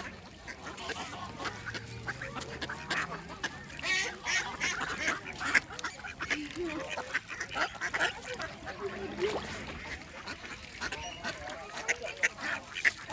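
Waterfowl calling in many short, quick honks and quacks, the calls bunching thickest in the middle and near the end.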